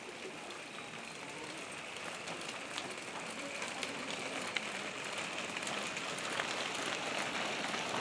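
Stroller wheels and footsteps crunching and rattling on a gravel path: a steady gritty rolling noise with scattered small clicks, growing slowly louder.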